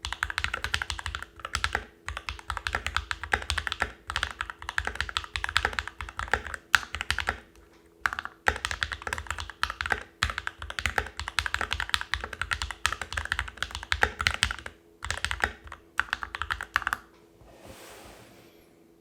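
Typing on a Novelkeys NK65 Entry Edition mechanical keyboard fitted with lubed and filmed Alpaca v2 linear switches: a rapid run of keystrokes with a few brief pauses. The typing stops about two seconds before the end, leaving a faint hiss.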